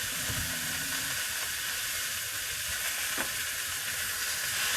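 Sausages frying in a pan, a steady sizzle.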